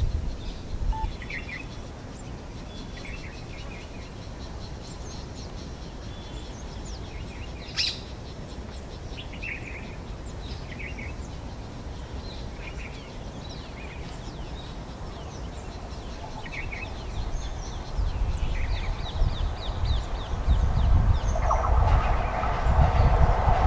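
Small birds chirping over a low background rumble. In the last few seconds, an approaching electric-hauled express train's rumble swells, and a steady tone joins it near the end.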